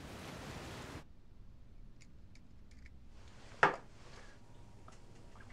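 Steady rushing noise of sea and wind that cuts off suddenly about a second in. Then a quiet small room with a few faint clicks and one sharp knock a little past halfway.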